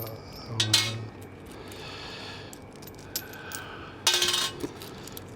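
Loose coins clinking and jingling as a handful of change is sorted to pay, with a louder jingle about four seconds in.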